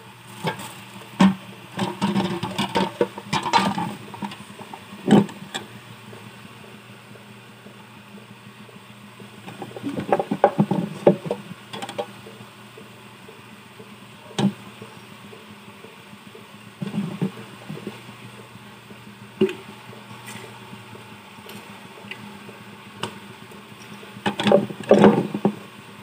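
Chicken pieces simmering in soy-sauce adobo in a frying pan: a steady bubbling hiss, broken by scattered knocks and clatter of handling. Near the end a metal spatula scrapes and knocks against the pan as stirring starts.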